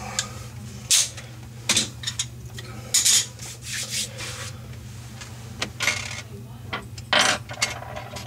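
Tools and plumbing parts being handled and set down: irregular clinks, clatters and rubbing, several sharp knocks spread through, over a steady low hum.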